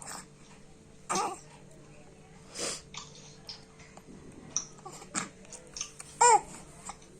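A one-month-old baby with a cough making a couple of short coughs in the first few seconds, then small mouth clicks and a brief, loud voiced squeak a little after six seconds.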